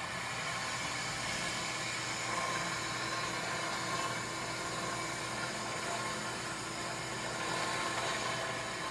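Vintage digital oscilloscope running just after being switched on, with its lid off: a steady, even whir and hiss with a faint hum.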